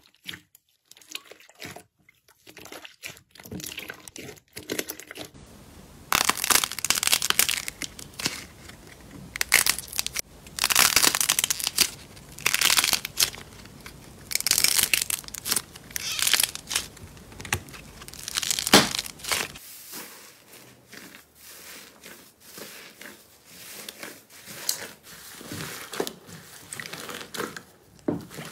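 Hands squeezing, kneading and stretching slime, making irregular crackling, crinkling and tearing sounds in a few separate takes, loudest in the middle one.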